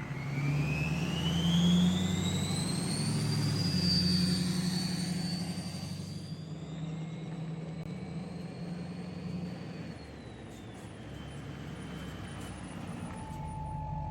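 A pickup truck's engine accelerating under load, its rumble carrying a high whine that rises steadily in pitch over the first few seconds. After about six seconds the engine sound drops and fades away.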